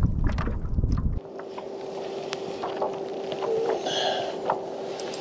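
Wind buffeting the microphone over water lapping at a kayak hull, with scattered light clicks. About a second in the wind rumble cuts off abruptly, leaving quieter water sound, a faint steady hum and occasional ticks.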